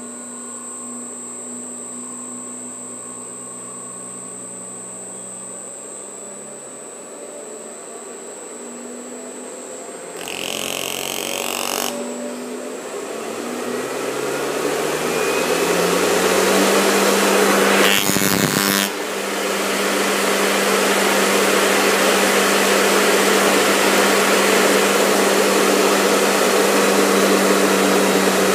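Rebuilt 2-horsepower three-phase electric motor on a variable frequency drive, speeding up from its normal 60 Hz to about 200 Hz, far past its rated speed. Its hum rises in pitch and the rush of its cooling air grows steadily louder, then holds steady at top speed.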